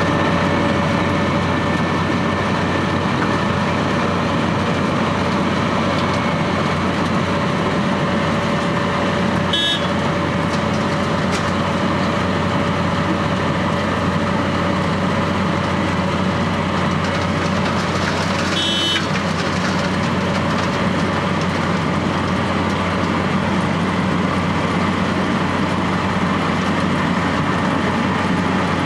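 Wirtgen W210 cold milling machine running steadily under load, its engine and milling drum grinding off the asphalt road surface in a dense, unbroken noise with a steady hum. Two short, sharp, higher sounds cut through about ten and nineteen seconds in.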